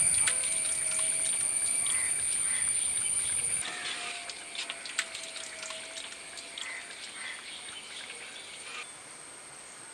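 Wire-mesh skimmer scooping boiled rice out of its hot cooking water in an aluminium pot and tipping it into a perforated steamer: water dribbling and light metal clinks and knocks, one sharper knock about halfway through.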